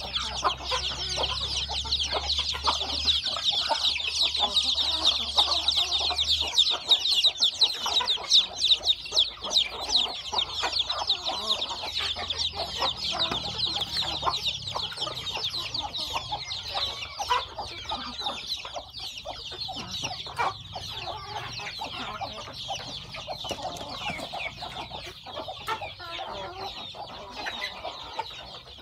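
A pen of young domestic chicks peeping continuously: a dense, high chatter of many overlapping calls, loudest in the first half and a little weaker later, with some lower chicken clucks underneath.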